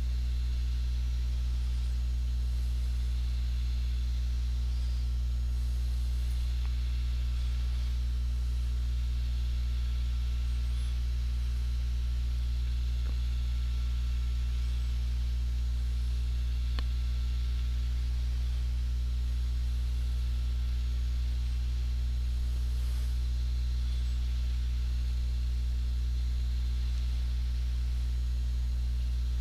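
Steady electrical mains hum: a low, unchanging buzz with a stack of overtones, and a faint click past the middle.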